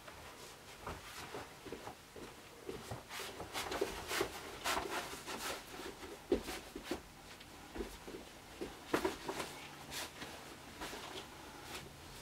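Rustling of a plush mascot costume with faint, irregular taps and scuffs as the wearer moves about in its hard hoof shoes.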